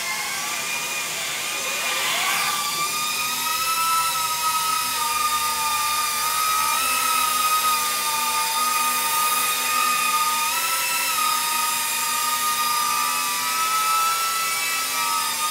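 NewBeeDrone CineMah ducted micro quadcopter's motors and props whining steadily during its first hover test. The pitch climbs over the first few seconds, then holds with small wavers as the throttle shifts.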